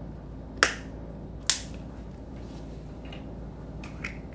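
Rubber dam punch snapping shut twice, about a second apart, as it punches holes in a rubber dam sheet; a fainter click follows near the end.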